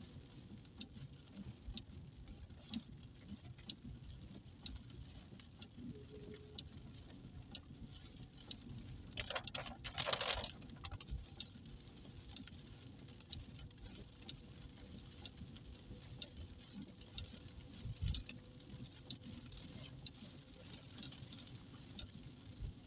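Scattered raindrops patter on a car's windscreen and roof over the low rumble of tyres on a wet road. About nine seconds in, a louder rush of noise lasts about two seconds.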